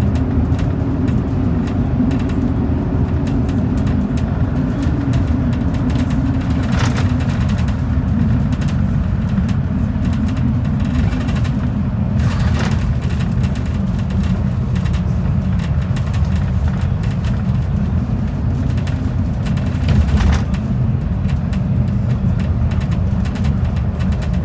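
Bus running at speed: a steady low rumble of engine and road noise, with three brief knocks or rattles spread through it.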